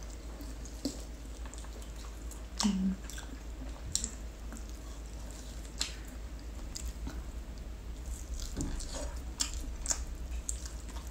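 A person chewing and biting roast turkey meat off the bone, close up, with wet mouth clicks scattered through. A short low hum comes about two and a half seconds in.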